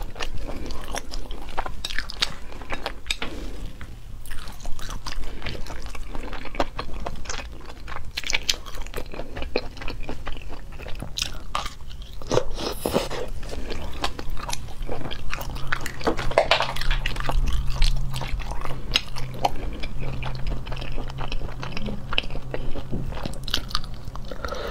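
Close-miked eating sounds: a person biting and chewing shellfish in chili sauce, with frequent short wet smacks and crunches, over a low steady hum.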